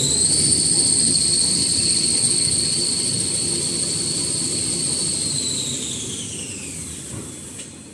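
Automatic kitchen towel paper rewinding machine running, with a high whine over a low mechanical rumble. The whine holds steady at speed, then falls in pitch from about five seconds in and fades as the machine winds down.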